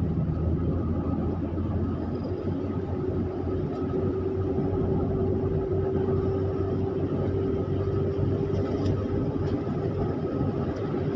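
Car driving, its engine and tyre noise heard from inside the cabin as a steady rumble with a held drone.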